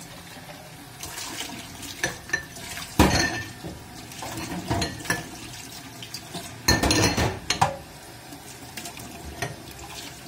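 Hot tap water running over glass jars in a stainless-steel sink as they are rinsed one by one, with glass knocking and clinking against the other jars and the sink. The loudest knocks come about three seconds in and again around seven seconds.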